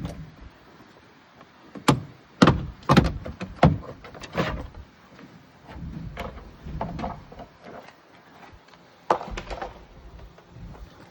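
A series of sharp knocks and clicks, several in quick succession a couple of seconds in and another pair near the end, as parts of a car door are handled during power window repair work.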